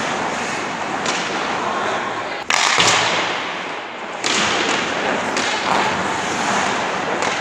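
Ice hockey skates scraping on rink ice, with thuds of puck and sticks against the boards. The sound breaks off and changes abruptly twice, about two and a half and four seconds in, where the footage is cut.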